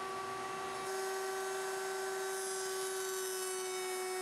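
Router mounted in a router table running at full speed, a steady high whine, as a cherry frame piece is fed along the fence to cut a stop rabbet. The tone shifts slightly about a second in.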